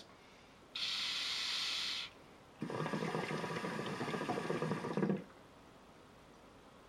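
Hookah being smoked through its hose: a short hiss of air, then about two and a half seconds of water bubbling in the base as the smoke is drawn.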